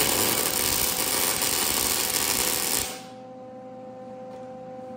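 Wire-feed welder laying a tack weld on a steel motorcycle frame: a steady crackling sizzle of the arc that cuts off sharply about three seconds in.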